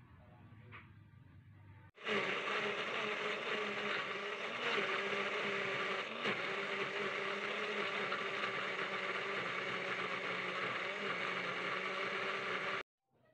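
Small electric blender running steadily, grinding tomatoes and shallots with a little water into a pink puree. It starts abruptly about two seconds in and cuts off abruptly near the end.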